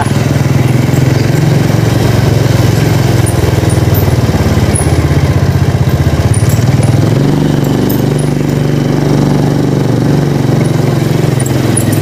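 Honda motorbike's engine running while riding, its note shifting about seven seconds in.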